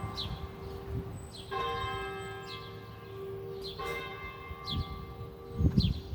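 Church bells ringing: two strokes a couple of seconds apart, each ringing on and fading over a steady lower bell tone. A short low thump comes near the end.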